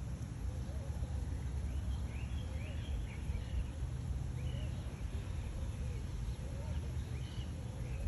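Outdoor background: a steady low rumble with faint bird chirps now and then, a few high calls clustered around the middle and another near the end.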